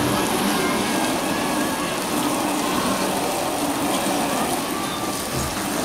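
Fire-engine amusement ride running: a steady hiss with a faint low hum beneath it.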